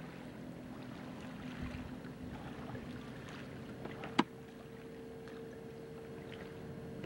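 Faint, steady engine hum over low outdoor background noise, with one sharp click about four seconds in.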